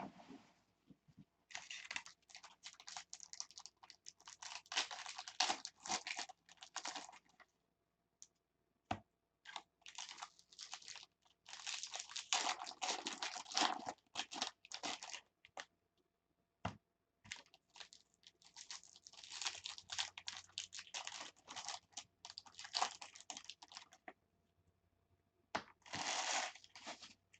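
Wrapper of a 2015 Bowman Draft Jumbo card pack being torn and crinkled by hand, with long stretches of rustling and short pauses between them.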